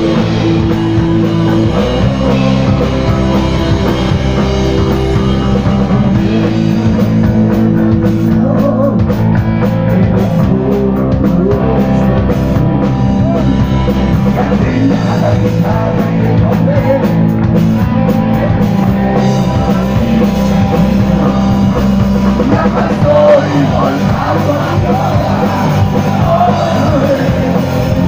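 Live rock band playing loudly: electric guitar, drum kit and a singer's voice, heard close to the stage.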